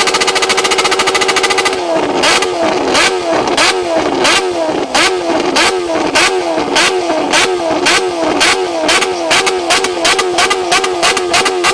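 Sport motorcycle engine bouncing off its rev limiter. For about two seconds it holds a fast, steady stutter at high revs, then it climbs in quick rises about three times a second, each cut off with a sharp bang from the exhaust as it spits flames.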